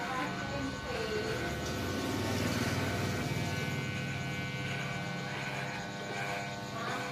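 Electric hair clippers with a guard comb buzzing steadily as they cut short hair. Background music with singing is underneath, coming forward near the end.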